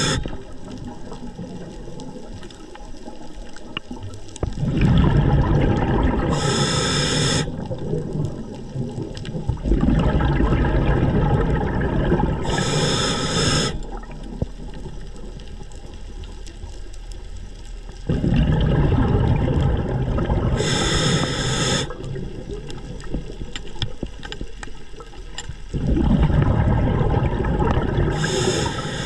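Underwater rushing and gurgling of water around a spearfishing camera. It swells in loud stretches of about three seconds every seven or eight seconds, and each stretch ends in a short hiss.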